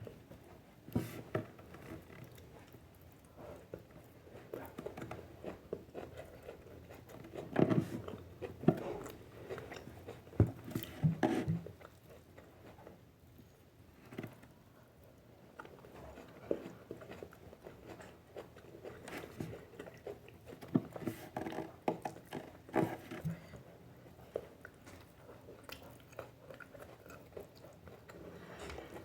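A person biting and chewing herbs and corn flour, with irregular crunches that grow louder in two clusters, about a third of the way in and again past two thirds.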